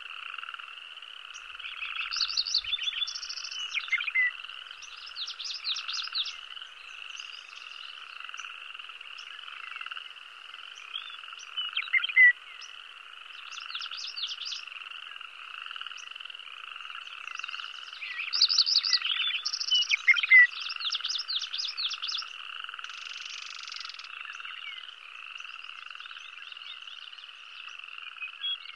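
A chorus of frogs calling steadily in a pulsing trill, with louder runs of rapid croaks rising above it several times, loudest about twelve and twenty seconds in.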